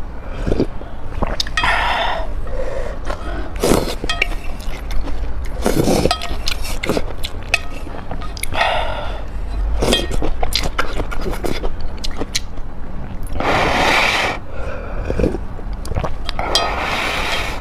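Close-miked eating sounds: chewing with quick wet clicks, several longer slurps of noodles, and light clinks of utensils.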